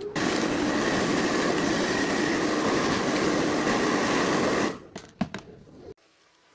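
Small electric fan running at speed: a steady whir of motor and blades with a rush of moving air. It starts suddenly, holds steady, then dies away with a few clicks near the end.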